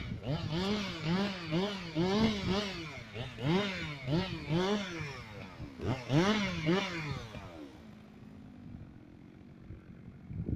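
Two-stroke chainsaw revved up and let back down over and over, roughly one to two revs a second, as in limbing or short cuts. About eight seconds in the revving stops and the saw drops to a quiet, steady idle.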